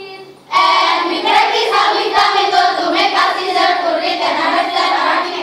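Group of schoolgirls' voices in unison, performing a choral speaking piece, starting loudly about half a second in.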